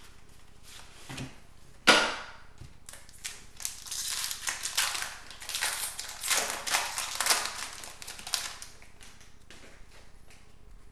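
A trading-card pack's wrapper being torn open and crinkled by hand: a sharp snap about two seconds in, then several seconds of crinkling, with light card clicks near the end.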